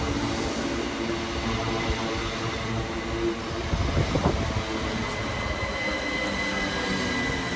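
c2c electric multiple unit running along a station platform: a steady rumble of wheels and running gear, with a burst of knocks about four seconds in and a thin high whine growing near the end.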